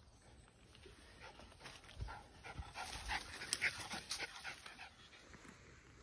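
A terrier panting in quick, breathy puffs that build to their loudest about halfway through and then fade, with a few low thumps among them.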